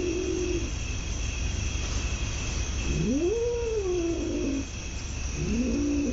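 A cat yowling in long, drawn-out calls: one trails off near the start, a second rises and falls about three seconds in, and a third begins near the end. A steady low hum runs underneath.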